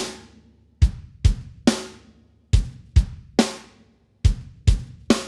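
Drum kit playing a rhythmic figure of three evenly spaced hits, then a short gap, repeated. Each hit pairs a deep bass-drum thump with a cymbal that rings off.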